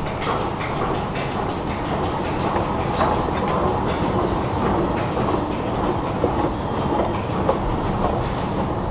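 Long metro-station escalator running under a rider: a steady mechanical rumble with a few light clicks from the moving steps.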